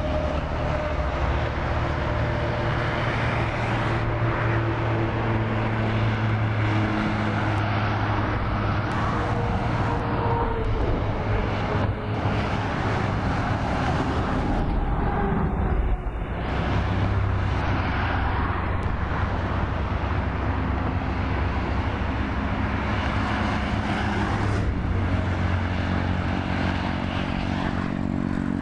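Highway traffic passing below: heavy trucks and cars going by, a steady drone of engines and tyre noise with engine tones rising and falling as vehicles pass.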